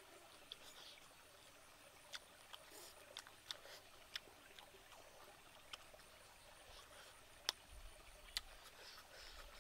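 Faint eating sounds: scattered sharp lip smacks and mouth clicks while chewing, irregularly spaced, the loudest a little past the middle, over a faint steady stream murmur.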